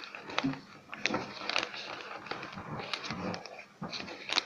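Coloured pencil scratching across paper in many short strokes, as waves are coloured onto a folded paper boat.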